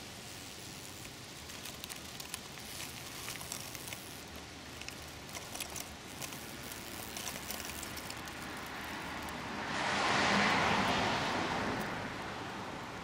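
Light rustling and small clicks of hedge leaves brushing close to the camera, over steady outdoor background noise. About ten seconds in, a broad rush of noise swells up and fades away over roughly three seconds.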